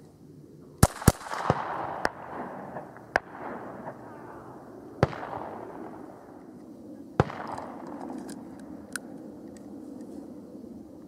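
Ruger 22/45 Mark III .22 LR pistol firing a string of about seven sharp shots at uneven gaps, the first two in quick succession, each followed by a fading echo.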